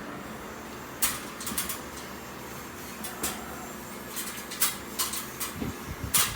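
Irregular sharp knocks and clacks of tools and hardware being struck or handled during an air-conditioner installation, about six of them, the loudest near the end, over a faint steady hiss.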